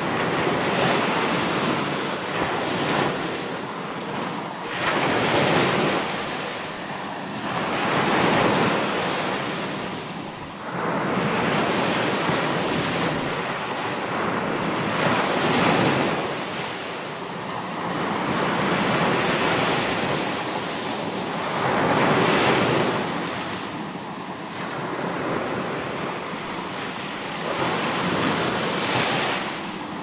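Ocean surf: waves breaking and washing ashore, a steady rush that swells every few seconds as each wave comes in.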